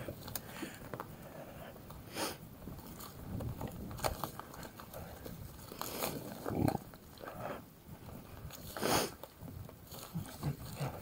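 Mountain bike riding a dirt trail: scattered knocks, clicks and rattles of the bike over bumps, with tyres crunching over the ground and a few louder noisy bursts.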